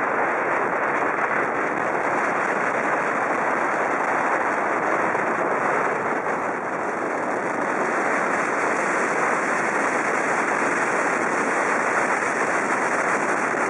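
Steady rushing noise of wind and water from a boat under way, unchanging in level.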